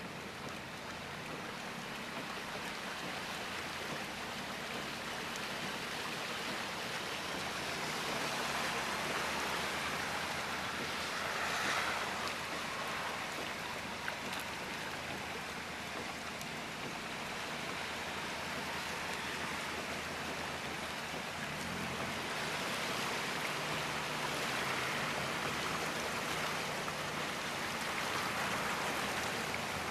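Heavy storm rain and rushing floodwater, a steady hiss that swells twice.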